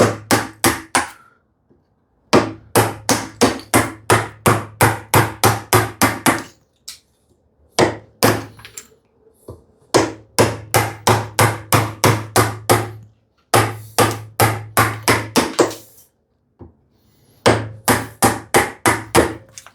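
Mallet striking a chisel, chopping waste out of poplar in quick runs of about four blows a second, with short pauses between runs.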